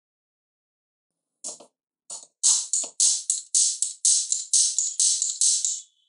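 A disposable lighter's flint wheel struck over and over, a dry rasping strike about three times a second, starting about a second and a half in. The lighter is failing to do its job, which its owner puts down to a bad lighter.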